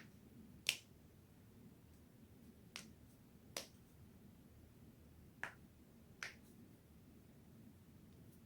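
Joints cracking: five sharp, separate pops spaced a second or two apart, the later ones coming in pairs.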